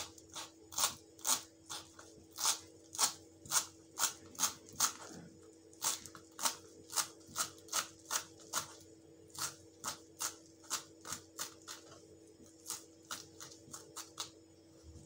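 Kitchen knife chopping fresh coriander on a wooden cutting board: a steady run of sharp taps about two a second that stops shortly before the end, over a faint steady hum.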